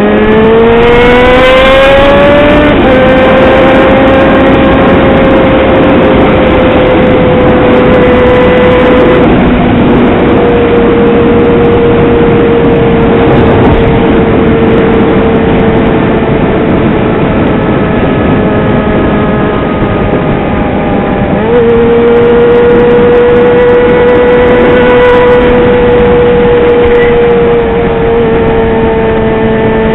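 Yamaha XJ6's inline-four engine running loud under way: it revs up hard over the first couple of seconds, then holds a steady high note that sags slowly as the bike cruises, and picks up again about twenty seconds in. A steady rushing noise of wind on the microphone lies under it.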